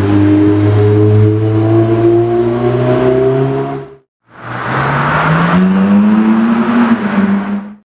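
Two Ferrari V8 supercars, a 488 GTB and then a 458 Italia, each pulling away and accelerating, the engine note rising in pitch. The first sound cuts off abruptly about four seconds in, and the second starts a moment later.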